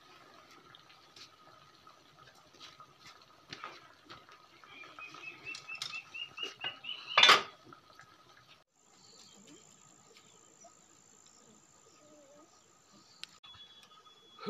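Wood fire crackling under a pan of simmering fish, with scattered clicks and one sharp, loud crack about seven seconds in. Just before the crack a bird chirps a quick rising run of notes, and a steady high whine sits over the middle stretch.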